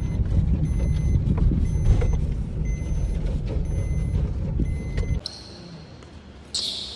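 Low road and engine rumble inside a moving car's cabin, with a short electronic warning chime repeating about once a second. It cuts off about five seconds in; a quieter large hall follows, with a short high-pitched sound near the end.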